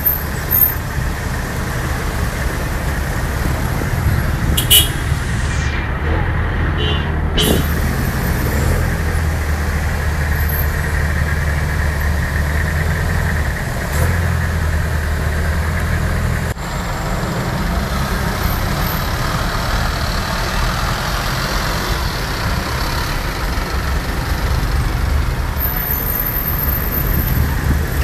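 Engine and traffic noise heard from the open back of a moving songthaew (baht bus, a converted pickup truck): a steady low drone, with the engine holding an even hum through the middle stretch.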